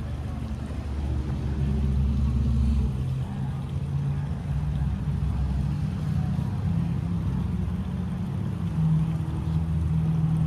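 A low, steady engine drone whose pitch shifts now and then.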